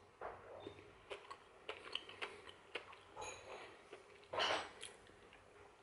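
A man chewing a mouthful of cake close to the microphone, with small wet clicks and smacks from the mouth and fork. There is a short breathy hiss a little after four seconds in.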